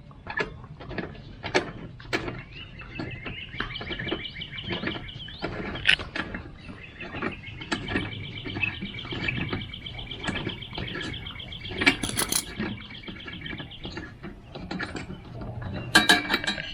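Ratchet wrench clicking in irregular strokes as the spark plug is worked loose from a lawn mower engine. A bird's long high trill sounds alongside it.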